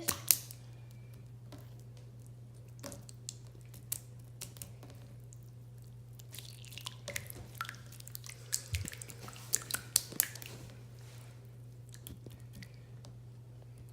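Jiggly purple slime being squeezed and pressed by hand for ASMR, giving scattered wet squishes and small clicks, busier in the second half. A steady low hum runs underneath.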